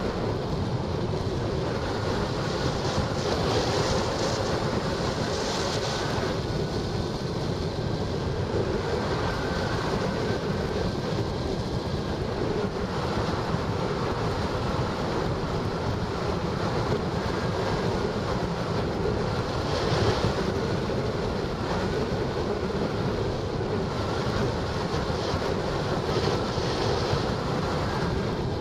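Steady rush of wind noise on the microphone of a camera mounted on a hang glider in flight, airflow buffeting it with slow swells in loudness.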